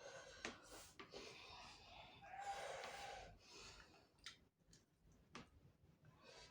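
Faint eating sounds: scattered wet mouth clicks from chewing soft-boned chicken head, with a long breathy hiss about two seconds in, air drawn in against the chilli heat.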